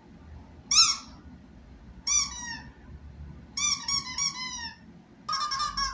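Recorded high-pitched squeaks played for a dog, in four short bursts of quick, arching notes: a single one about a second in, then three runs of rapid squeaks about every one and a half seconds.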